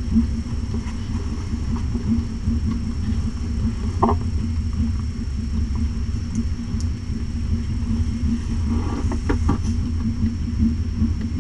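Steady low rumble of background noise, with a brief faint squeak about four seconds in and a few faint clicks and rustles near the end.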